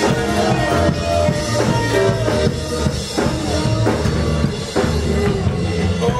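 Live church band playing upbeat dance music, a drum kit keeping a steady beat over keyboard.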